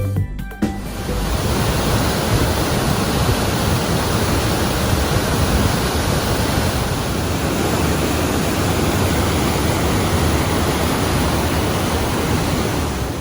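Waterfall on the Bonnechere River's Fourth Chute: a loud, steady rush of falling water, starting about half a second in as the music cuts away.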